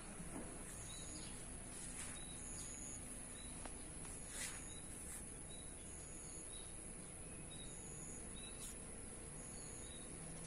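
Faint garden ambience with short, high chirps recurring about once a second, and a few soft clicks, the clearest about four and a half seconds in.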